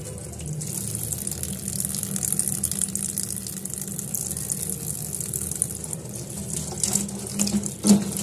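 Tap water running into a stainless steel bowl of okra pods as they are rinsed and rubbed by hand, with louder splashing near the end.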